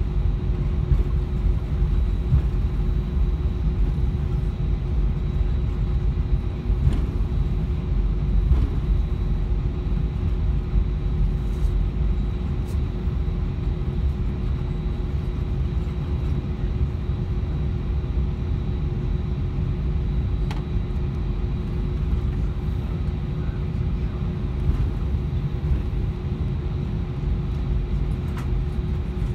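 Airbus A320 taxiing with its jet engines at idle, heard inside the cabin: a steady low rumble with a constant hum, and a few faint clicks.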